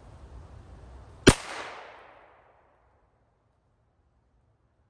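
A single rifle shot about a second in, sharp and loud, with its echo dying away over about a second.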